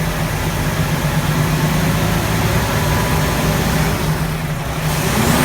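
IVECO Stralis 560's 13-litre Cursor 13 inline-six diesel idling steadily, a deep even hum.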